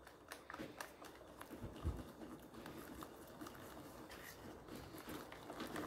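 Wire whisk beating thin cake batter in a plastic bowl: faint, irregular clicks and taps of the wires against the bowl, with a low thump about two seconds in.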